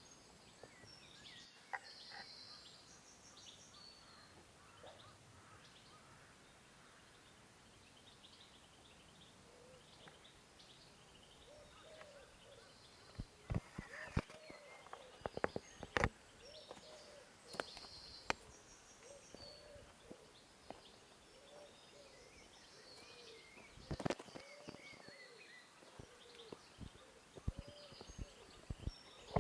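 Wild birds calling faintly: short high chirps and buzzy trills throughout, with lower calls repeating in the second half. A few sharp knocks and scrapes of boots and hiking gear on rock come around the middle and near the end.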